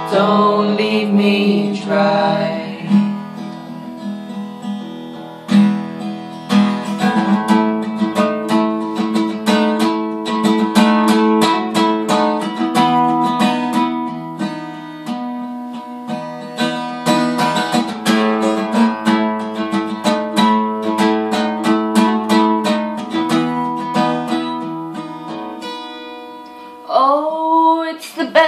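Acoustic guitar strumming an instrumental break, steady chord strokes several times a second, getting quieter a few seconds before the end.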